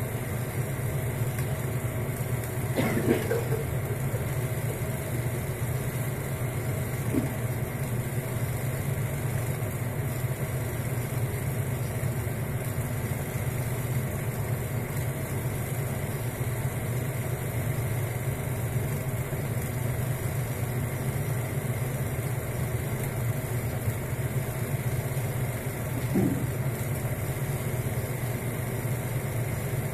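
16mm film projector running with a steady mechanical hum.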